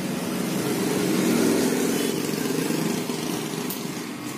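Electric hair clipper running with a steady hum, growing louder in the middle and easing off again.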